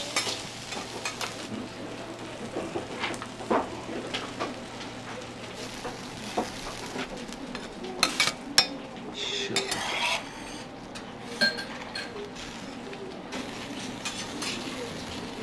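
Food sizzling on a steel teppan griddle while metal spatulas scrape and clink against it, with a few sharp metallic clacks about eight seconds in.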